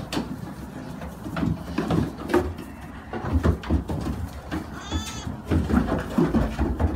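Goats bleating, with one clear high bleat about five seconds in, among scattered knocks and shuffling of hooves on straw and against the wooden pen.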